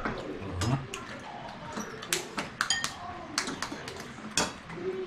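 Cutlery and dishes clinking and tapping at a meal: a run of short sharp clicks, one ringing clink about two and a half seconds in, and a louder tap near the end.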